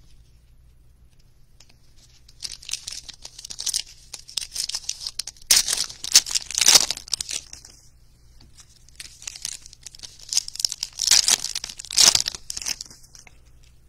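Foil wrappers of 2021 Panini Diamond Kings baseball card packs being torn open and crinkled by hand, in three spells of tearing with short pauses between them.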